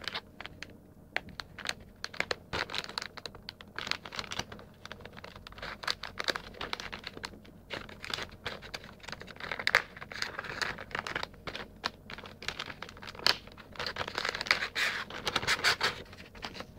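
Plastic packaging bag crinkling and rustling in the hands as it is handled and pulled open, with many irregular scratchy crackles that grow busier in the second half.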